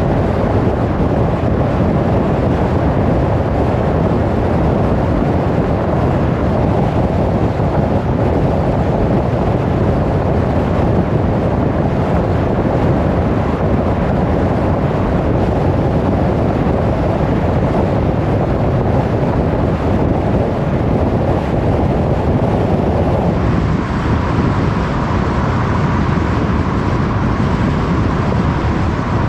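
Steady road noise of a car driving on a motorway: tyre and wind rush with no distinct engine note. The tone changes slightly about three-quarters of the way through, becoming less deep.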